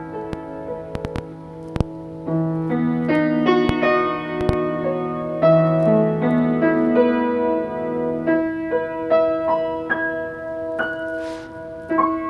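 Piano or keyboard music: held chords under a slow melody, with several sharp clicks in the first five seconds.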